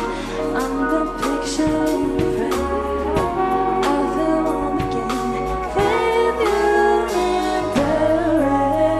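Live band music: a singing voice over keyboard and electric guitar.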